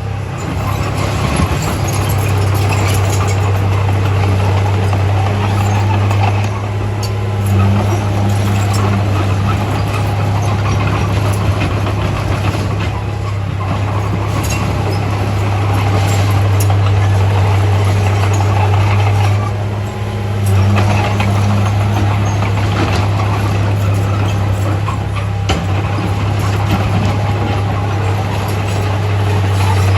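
Heavy diesel earthmoving machinery running steadily, a constant low engine drone that stays loud throughout with a noisy mechanical clatter over it.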